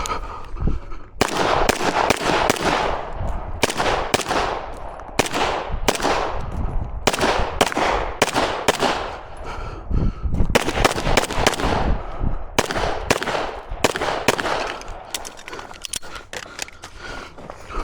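Gunfire from a competitor's firearms during a timed 2-gun stage: irregular strings of shots, at times several a second, each followed by a ringing echo. The shots thin out near the end.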